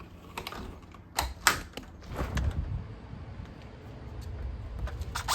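A series of irregular sharp clicks and knocks over a low rumble of movement, the loudest clustered between one and two seconds in, with a louder rustling burst right at the end.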